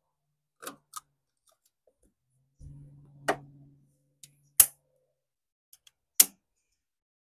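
Sharp plastic clicks and snaps as a clear distributor cap, with its spark plug wires attached, is fitted and snapped into place on an air-cooled Volkswagen engine's distributor. There are five separate clicks, the loudest two near the end.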